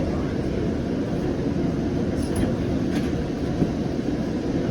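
Steady low rumble of a Siemens S700 light rail car heard from inside, with a few faint clicks about halfway through.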